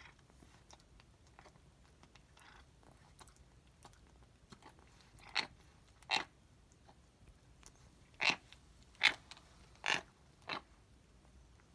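A 17-year-old cat chewing food and grinding her teeth: faint chewing clicks at first, then six loud, sharp grinds in the second half. The grinding goes with her growing difficulty eating.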